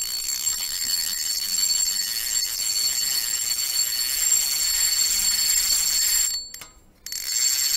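Intro sound effect on a channel logo card: a loud, high-pitched hiss with two steady ringing tones in it. It fades out about six seconds in and comes back for the last second.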